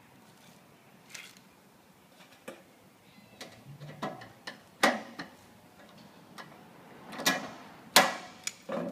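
Sharp metallic clicks and snaps from a hand tool working a metal downpipe pop into a steel quad gutter, irregular and getting louder, the loudest snap about eight seconds in.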